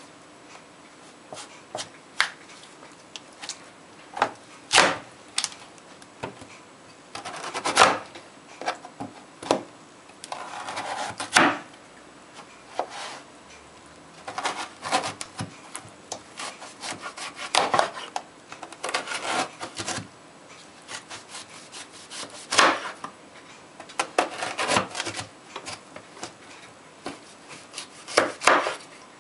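A kitchen knife cutting a firm root vegetable into chunks on a plastic cutting board. There are irregular knocks of the blade hitting the board, and stretches of sawing and scraping as the blade works through the flesh, one longer stretch about ten seconds in.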